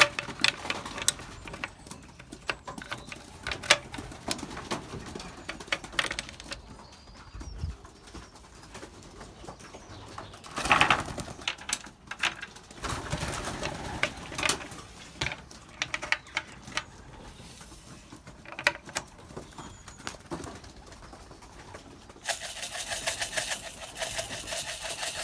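Young racing pigeons cooing, with scattered sharp clicks and knocks and a few short louder bursts. Near the end there is a fast, even rattle lasting about three seconds.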